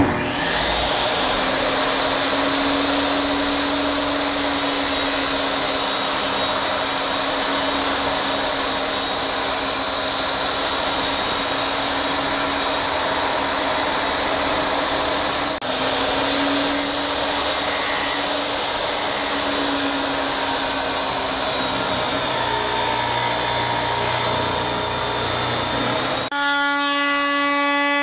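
Table saw running and cutting a vinyl flooring plank, a steady loud whine with a short break about halfway. Near the end the sound switches to a Craftsman oscillating multi-tool running against the plank, a steady pitched buzz.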